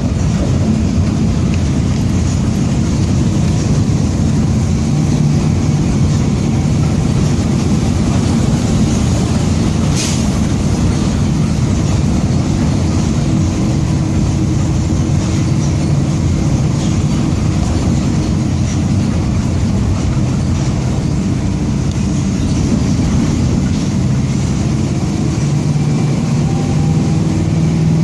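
Mercedes-Benz OF-1722M city bus under way: its diesel engine runs steadily together with a growl from the differential. A single sharp click comes about ten seconds in.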